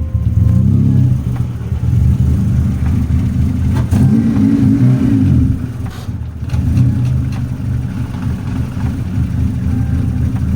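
A car's engine and exhaust running loud, with a heavy low note and the level wavering as the revs rise and fall.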